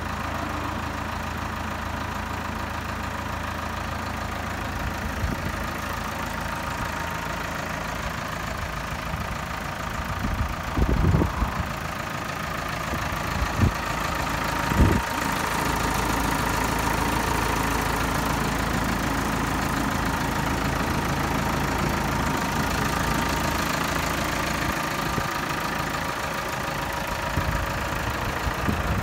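Claas Axos 340 tractor's four-cylinder diesel engine idling steadily. A few short knocks come between about eleven and fifteen seconds in, after which the engine is a little louder.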